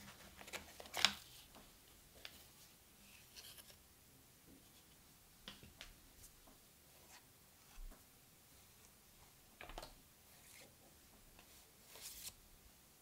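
Quiet handling of an iPhone box's paper and cardboard packaging: scattered soft scrapes, rustles and small clicks as the paper documentation sleeve is lifted out of the box tray, the sharpest click about a second in.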